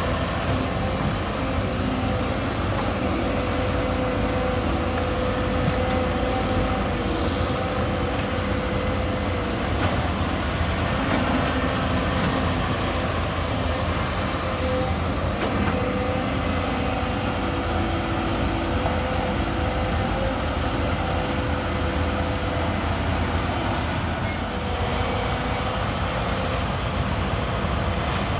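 Hydraulic excavator's diesel engine running steadily under load, a low rumble with a steady whine over it.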